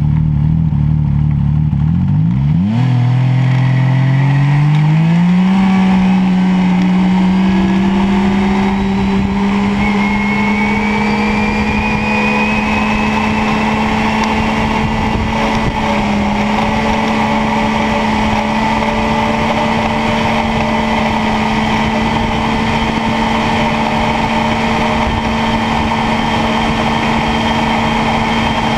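Yamaha Viper snowmobile's three-cylinder four-stroke engine idling, then revving sharply up in pitch about three seconds in on a full-throttle launch. It then holds a high, nearly steady drone as speed builds to about 104 mph at 9000 rpm. A thin rising whine joins about ten seconds in.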